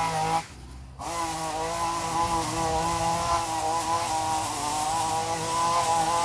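Small petrol engine of a yard power tool running steadily, with an abrupt break of about half a second near the start before it carries on.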